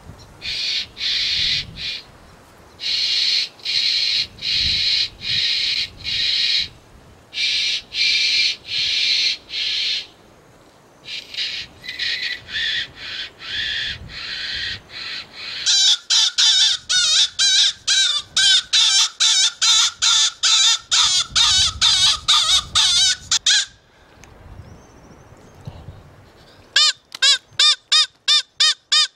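Predator call blown to lure foxes: a run of raspy squawks about a second each, then about halfway a rapid string of high squeals, a few a second, which pauses briefly and starts again faster near the end.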